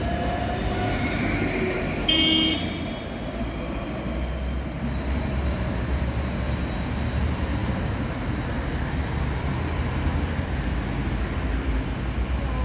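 Alstom Citadis tram pulling away, with a whine that fades out in the first second or so. A short, loud horn toot sounds about two seconds in, followed by a steady low road-traffic rumble.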